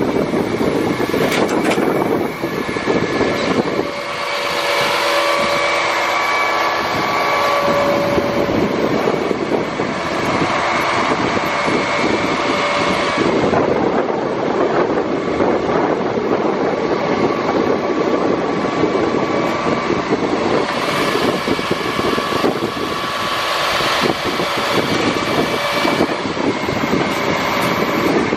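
Tilt-tray truck's engine and hydraulics running steadily, with a faint whine over the engine noise, as the loaded tray is brought level.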